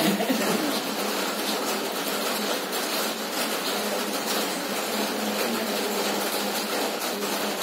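Steady, even background rushing noise with no clear voice or distinct events in it.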